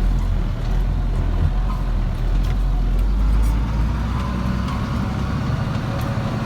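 Freightliner truck's diesel engine running as the truck drives slowly, a steady low rumble heard from inside the cab. The engine note shifts lower-middle about four seconds in.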